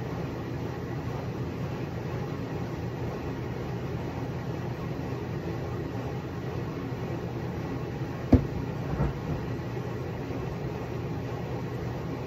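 Steady low mechanical hum and rumble, with one sharp knock about eight seconds in and a couple of softer thumps just after.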